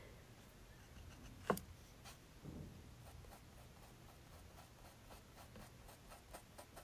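Faint scratchy strokes and dabs of a paintbrush working paint into a painted surface, with one sharper click about a second and a half in.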